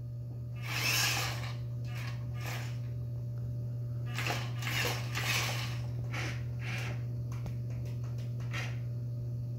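Droid Depot astromech droid moving across a hardwood floor: a run of short, hissy electronic bursts over a steady low hum.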